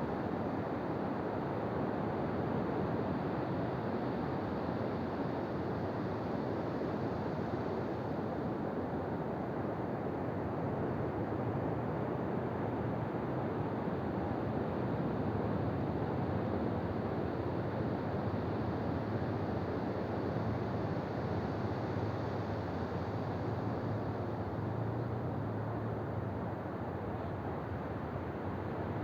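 Ocean surf washing onto a beach, a steady rushing noise with no distinct breaks between waves.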